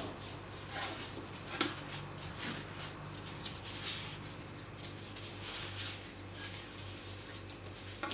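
Bore snake being drawn through an SVDS rifle barrel: a series of faint, irregular rubbing and swishing strokes over a low steady hum.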